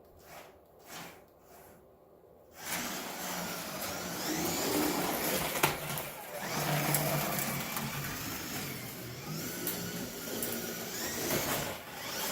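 Carrera slot car's small electric motor whining as the car runs on the plastic track, its pitch rising and falling with speed. It starts suddenly about two and a half seconds in, after near-quiet, with one sharp click a few seconds later.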